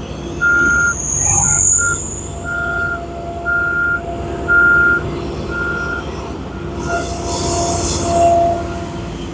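Reversing alarm of a road-works vehicle beeping about once a second over its running diesel engine; the beeps fade out about seven seconds in, and a burst of hiss follows.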